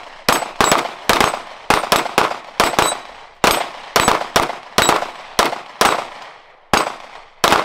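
Rapid pistol fire, about twenty shots in quick strings roughly a third of a second apart, with brief pauses about three and six seconds in. Steel targets ring after several of the hits.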